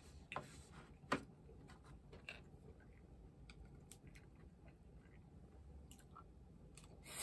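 Quiet tableware sounds while eating: light clicks of chopsticks and dishes, with one sharper knock about a second in as a bowl is set down on the wooden tray. A short rustle near the end.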